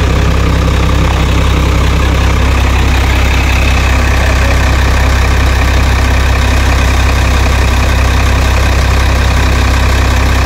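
Howo 380 A7 truck's diesel engine idling steadily after its injectors were serviced for rough running, hard starting and stalling. A thin higher whine joins the engine sound about two and a half seconds in.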